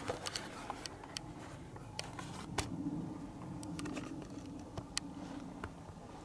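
Handling noise of a handheld camera being panned: faint rustling with scattered small clicks.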